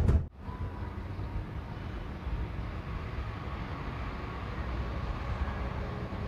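The tail of a drum hit cuts off just at the start, then a steady low rumble of vehicle noise with a faint hiss continues without change.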